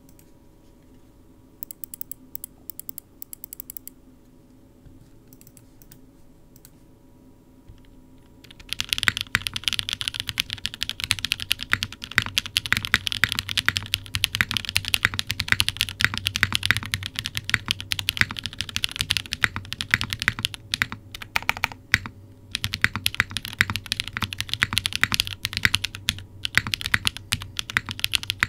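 Typing on a WK Lilac CW60 60% custom mechanical keyboard with a half polycarbonate plate, no foam, lubed L&F Techno Violet switches and GMK keycaps. A few scattered keystrokes come first, then fast continuous typing from about a third of the way in, with one brief pause near the end.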